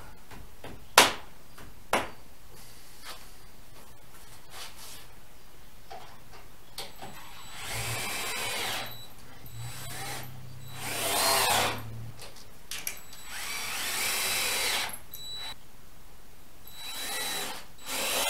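Cordless drill driving screws through pocket holes into the camper's wooden roof spars, in four runs of a second or two each. Two sharp knocks come about one and two seconds in, before the drilling.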